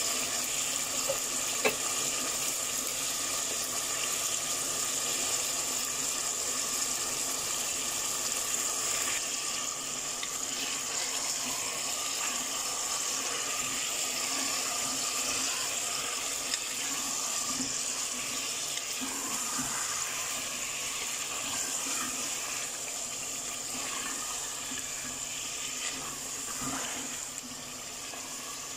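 Mutton pieces sizzling in hot oil in a pressure cooker as they are fried with ginger-garlic paste and stirred: a steady hiss that eases off slightly near the end.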